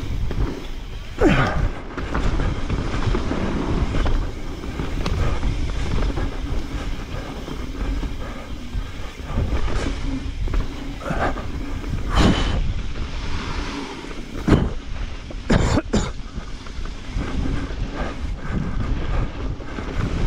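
Mountain bike descending a rough trail: a steady rumble of knobby tyres on dirt and rattle from the bike, broken by several sharp clunks from hits and landings.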